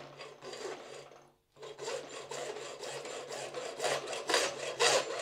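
Hacksaw cutting through a PVC plastic pipe clamped in a bench vise: repeated back-and-forth rasping saw strokes, with a short break about a second in and growing louder toward the end.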